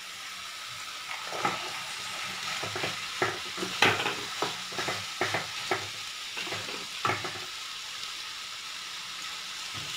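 Boiled kidney beans being stirred into a tomato-onion gravy in a nonstick frying pan with a plastic spatula: soft scrapes and taps of the spatula against the pan over a steady sizzle. The stirring stops about seven seconds in.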